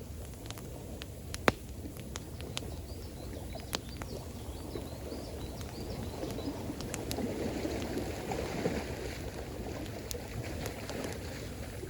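Campfire crackling with scattered sharp pops, the loudest about a second and a half in, over a steady wash of running water that swells for a few seconds past the middle.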